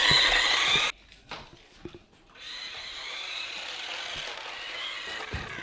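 Small electric motor and gears of a remote-control toy car whirring as it drives across a wooden floor, loud at first, cutting out abruptly about a second in, then returning softer and steady with slight rises and falls in pitch.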